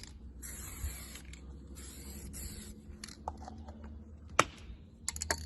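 Aerosol spray paint hissing out of a can of Hammerite black in several short bursts during the first three seconds, laying a coat on a car's underbody heat shield. A few sharp clicks follow, the loudest about four and a half seconds in.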